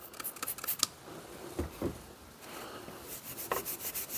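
A trigger spray bottle squirts Windex onto a rusty axe head a few times, and there are two soft knocks a little before halfway. Then 0000 steel wool starts scrubbing the wet steel in quick back-and-forth strokes about two and a half seconds in, taking off surface rust.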